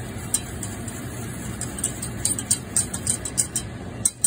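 A spoon stirring thick sauce in a metal saucepan, clicking and scraping against the pan now and then, over a steady low hum.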